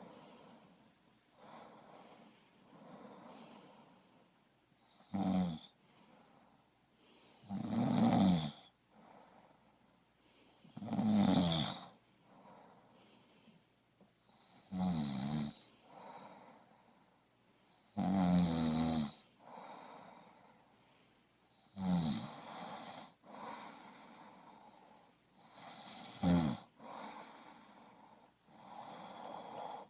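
A person snoring: seven loud snores, each about a second long and spaced roughly three to four seconds apart, with quieter breathing between them.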